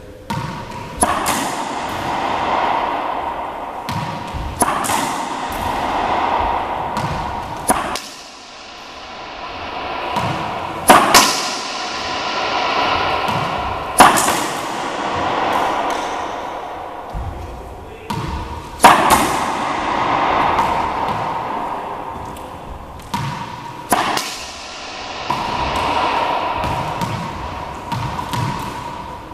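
Racquetball backhand practice: the ball dropped and bounced on the hardwood floor, then struck hard with the racquet and smacked off the front wall, about one shot every three to five seconds. Each hit rings out with a long echo in the enclosed court.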